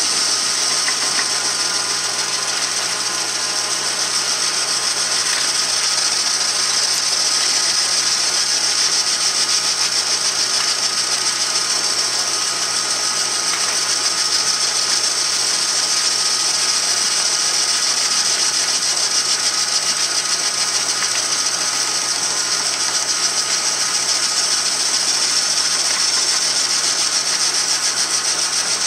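Metal lathe taking a turning cut with an indexable insert tool: a steady high hiss of the cut over the steady low hum of the lathe's drive motor.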